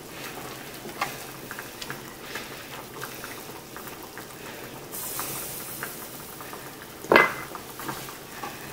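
Hands pressing and folding puff pastry on a plastic cutting board: soft rustling with scattered small taps and clicks, a brief scrape about five seconds in, and one sharp knock a little after seven seconds as a utensil meets the board.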